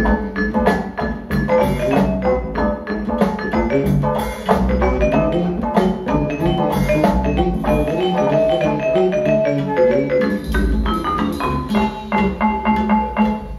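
A song played from a vinyl record through Audio Note AN-E/SPe HE loudspeakers: a busy passage of sharp, mallet-like percussive notes over a bass line, dropping away sharply at the very end.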